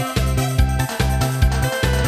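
Saxophone playing a trot melody over a backing track with a steady, pulsing bass beat.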